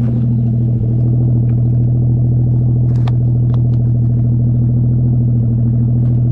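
Ford FG Falcon XR6 Turbo's turbocharged straight-six idling steadily through a 4-inch exhaust with the rear muffler deleted and shotgun tips: a low, even rumble with no revving. A few faint ticks sound about three seconds in.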